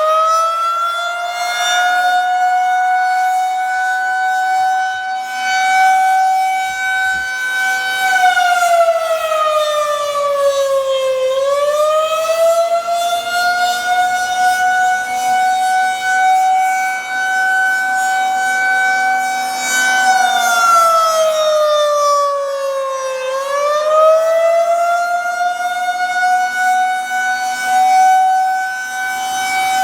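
Federal Signal 2001-SRNB electromechanical outdoor warning siren sounding a loud, steady tone just after winding up to full pitch. Its pitch sags and climbs back up twice, about 8 and 20 seconds in.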